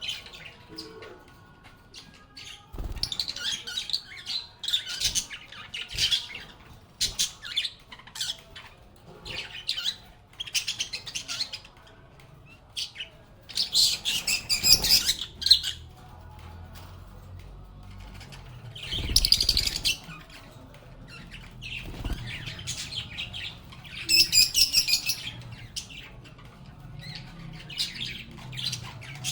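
Lovebirds chirping and squawking in quick, shrill bursts, with several louder spells of rapid squawking.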